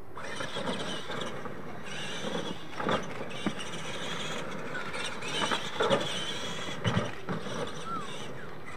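Electric RC monster trucks of the Clod Buster type racing on dirt, their motors and gearboxes whining and wavering in pitch as the drivers work the throttle.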